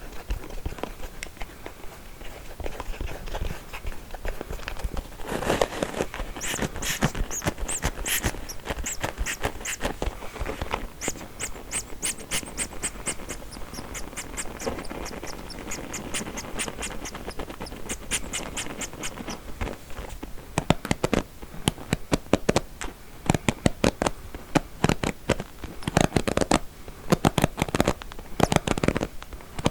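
Combs handled close to the microphone: fast runs of small clicks and scratches as the teeth are rubbed and flicked, with louder single taps in the last third.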